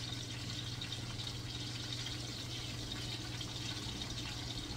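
Sausages frying in olive oil in a pan, a steady light sizzle with fine crackling, over a steady low hum.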